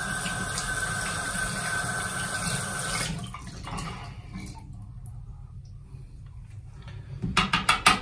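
Bathroom faucet running, its stream splashing over the aerator being rinsed by hand; the splashing is louder for the first three seconds, then softens to the stream falling into the basin. Near the end comes a quick run of sharp clicks.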